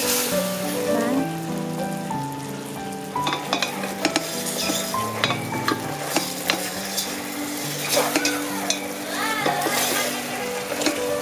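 Whole chicken sizzling in a thick, dark Coca-Cola glaze in a stainless steel pot, with a wooden spatula scraping and knocking against the pot many times as the chicken is turned and basted.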